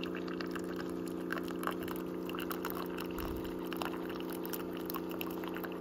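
Single-serve coffee maker brewing: a steady pump hum, with coffee streaming and spattering into the mug.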